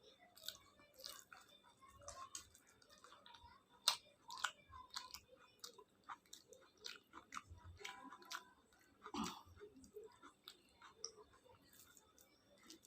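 Close-up chewing and wet mouth clicks of someone eating khichuri with fried vegetables and egg, in an irregular run of soft smacks. A sharper click about four seconds in is the loudest.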